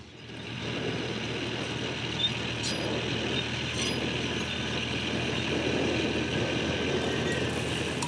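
A vehicle's engine running steadily with a low hum and a wash of driving noise, fading in at the start.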